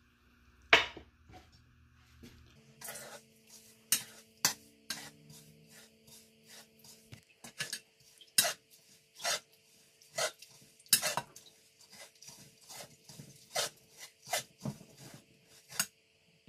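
Slotted metal spatula knocking and scraping against an aluminium karahi while stirring sugar into oil: irregular sharp clinks, roughly one a second, with a single loud knock just under a second in.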